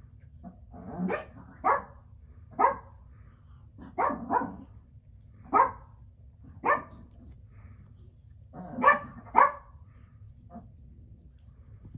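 Biro Biewer puppies yapping while they play: short, sharp puppy barks, about nine in all, some single and some in quick pairs, spread a second or so apart.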